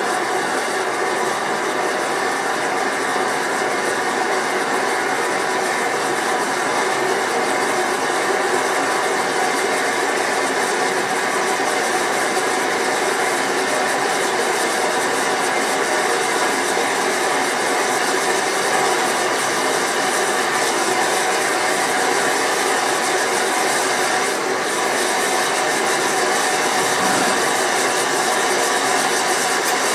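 Gas-fired melting furnace running at full fire to melt sterling silver: a loud, steady rush of burner flame with faint steady tones in it, unchanging throughout.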